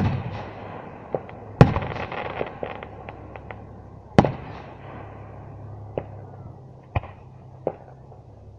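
Aerial firework shells bursting: three loud bangs, at the start, about a second and a half in and about four seconds in, each followed by a rolling echo, with a patter of small crackling pops after the second. Several fainter reports follow in the last few seconds.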